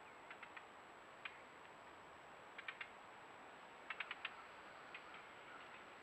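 White-tailed deer crunching corn kernels: short, sharp crunches in small clusters, the loudest group about four seconds in, over a faint steady hiss.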